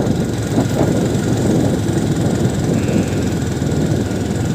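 Steady low rumble of a running motor vehicle's engine and road noise.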